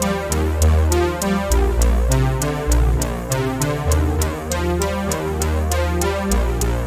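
Electronic background music with a steady beat, synthesizer chords and a deep bass line.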